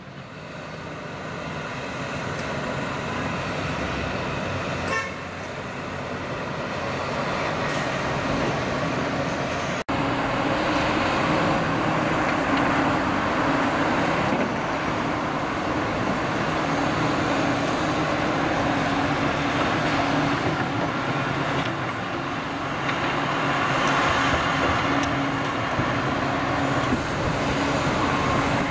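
Diesel engine of a Komatsu PC360LC tracked excavator running steadily under load as it works earth, a steady engine hum. It rises from faint over the first few seconds and has a brief break about ten seconds in.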